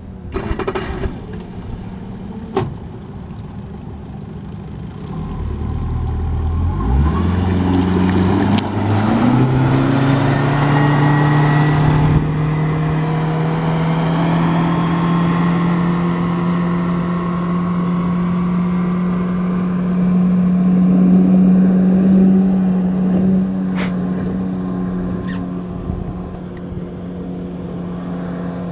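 Yamaha 50 hp four-stroke outboard motor running low, then throttled up about five seconds in, its pitch climbing in steps as the boat gets up to speed. It then runs steadily at speed, growing quieter near the end as the boat moves away.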